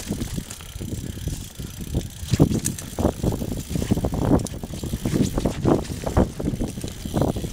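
Mountain bike riding fast down a rough dirt trail covered in dry leaves: the tyres rumble over the ground and the bike rattles and knocks irregularly over bumps.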